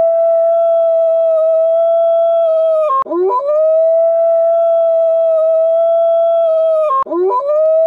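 A wolf howling: long held notes, each opening with a quick rise in pitch. One howl gives way to the next about three and seven seconds in.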